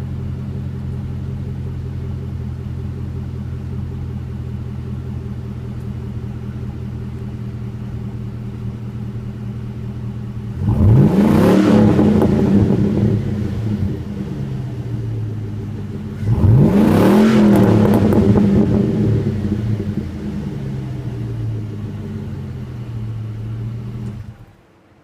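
2007 Chevrolet Silverado's 5.3-litre V8 through a Borla Pro XS straight-through muffler, idling steadily, then revved twice, each rev rising and falling in pitch over a few seconds. The sound cuts off suddenly near the end.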